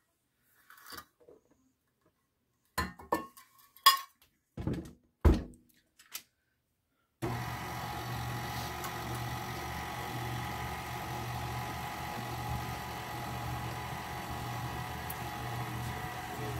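A handful of sharp knocks and clinks as flour is tipped from a measuring cup into a steel mixing bowl. About seven seconds in, a KitchenAid tilt-head stand mixer switches on and runs at a steady hum, its beater working flour into cookie dough.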